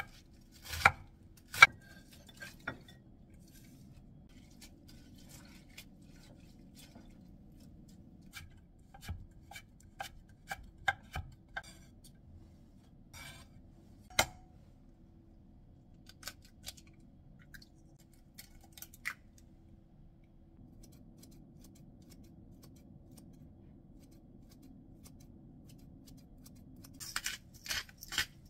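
Kitchen knife cutting through shredded cabbage onto a wooden cutting board in a few sharp strokes, then scattered light taps and knocks of ingredients being handled. Near the end comes a fast run of clicks from a hand pepper grinder. A faint steady hum runs underneath.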